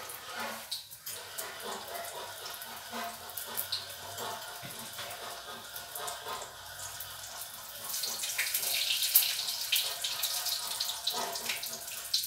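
Zucchini fritters sizzling in hot oil in a frying pan: a steady hiss dotted with small crackles, growing louder about eight seconds in.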